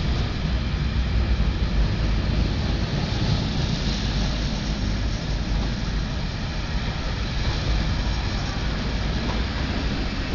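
Freight train of ballast wagons, a mix of four-wheel and bogie wagons, rolling steadily past: a continuous rumble of steel wheels on the rails.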